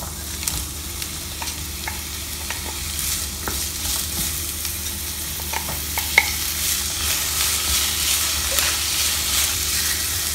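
Chopped shallots sizzling in hot coconut oil as they are tipped into a pan and stirred with a wooden spatula, with scattered clicks and knocks from the spatula and falling pieces. The sizzle grows louder after the first few seconds.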